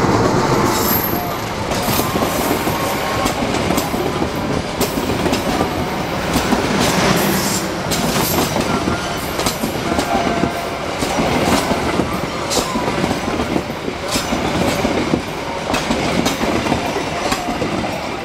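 Diesel-hauled passenger train passing close by: the locomotive's engine is heard at the start, then the coaches' wheels clatter over the rail joints in a long, uneven run of clicks until the last coach goes by near the end.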